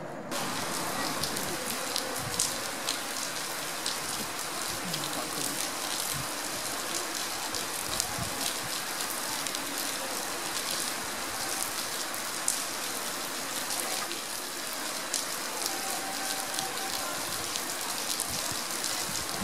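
Heavy rain falling steadily: a dense hiss with many sharp drop impacts scattered through it.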